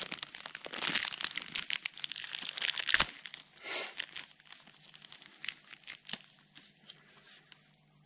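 Small plastic bag crinkling as gloved hands open it and pull out a new O-ring. The rustling is busiest for the first three seconds, with a sharp click about three seconds in, then thins to a few faint rustles and ticks.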